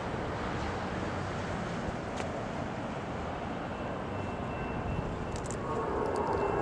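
Steady wind and traffic noise while a car drives over the level crossing. Near the end, a steady droning tone from the approaching freight train's Illinois Central SD70 locomotives comes in and keeps getting louder.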